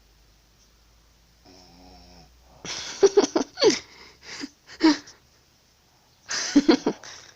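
Loud snoring in sleep. About a second and a half in there is a short pitched whistling tone, then a rough run of snores for about two and a half seconds, and another snore near the end.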